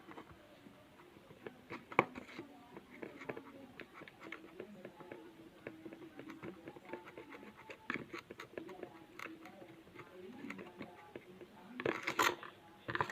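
Faint scratching and many small clicks from working the freshly activated slime mixture in its container.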